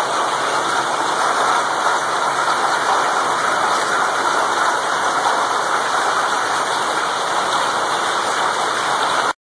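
Loud, steady hiss of a heavy downpour of wind-driven rain and hail pouring onto pavement. It cuts off abruptly near the end.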